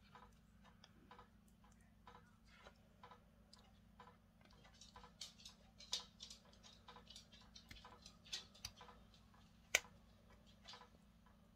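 White silicone mold being flexed and peeled off a cured resin casting, giving faint crackling and clicking as the silicone lets go of the resin. The clicks get louder and come faster about halfway through, with one sharp snap near the end.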